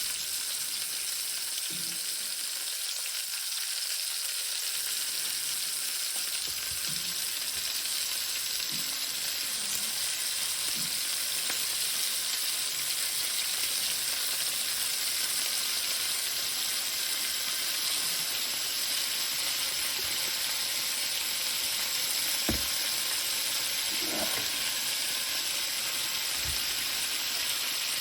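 Steady sizzle of food frying, with a couple of short knocks near the end.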